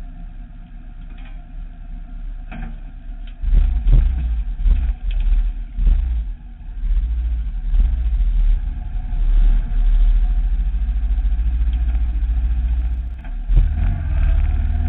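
Motorcycle engine idling, then pulling away about three and a half seconds in and running much louder, with a few sharp knocks as the bike moves off. Near the end the engine sound dips briefly and picks up again.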